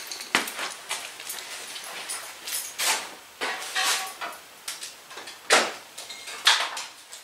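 Irregular knocks and clinks of hand tools and metal parts being handled during mower repair work, about half a dozen sharp hits with the loudest about five and a half seconds in.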